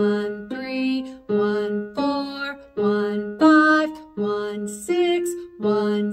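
A woman singing scale-step numbers. She alternates between the same low 'one' and a higher note that climbs one step each time, roughly 'one, three, one, four, one, five, one, six, one', each note held under a second.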